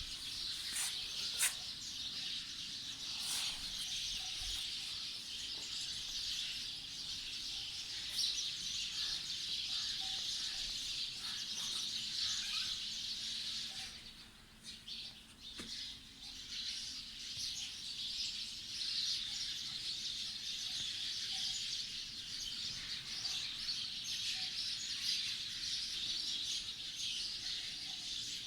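Many small birds chirping together in a dense, continuous chatter. It thins out briefly about halfway through, then picks up again.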